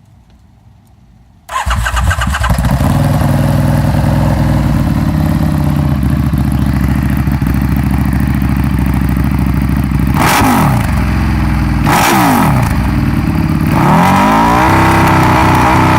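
EBR 1190SX's V-twin engine, fitted with a Dean Adams round-can exhaust, starting about a second and a half in and idling, then two quick throttle blips and a longer rev held near the end.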